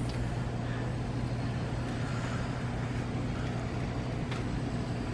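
Steady low hum and hiss of a store interior's background noise, with a light click about four seconds in.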